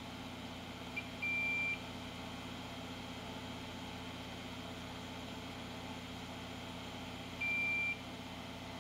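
Digital multimeter in continuity mode giving two steady high beeps of about half a second, about a second in and near the end, with a short blip just before the first. Each beep means the probes have found an unbroken connection between the two points on the logic board.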